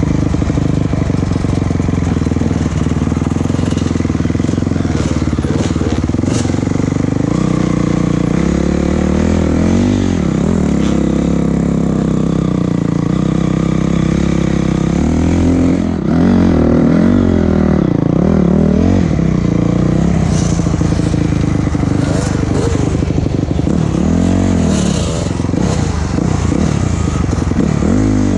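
A vehicle engine working along a rough dirt track, its pitch rising and falling again and again as the throttle is opened and eased. There is a brief dip about halfway through.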